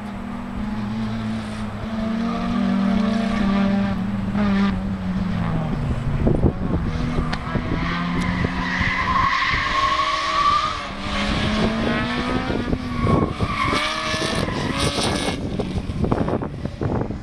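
Engine of a rear-wheel-drive Suzuki Swift drift car revving up and down as it drifts, with tyres squealing through the slides, longest about halfway through and again a few seconds later.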